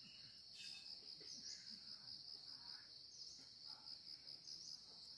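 Faint insect chorus: a steady, high-pitched pulsing trill that goes on without a break.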